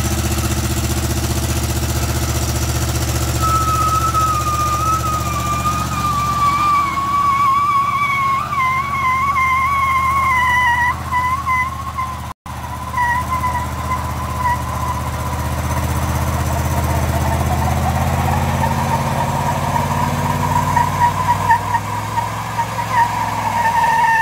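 AMC 360 V8 of a 1972 Jeep Wagoneer running steadily under load while both rear tyres spin in a burnout, with a wavering tyre squeal that starts a few seconds in, sags slowly in pitch and then holds steady. A split-second gap about halfway.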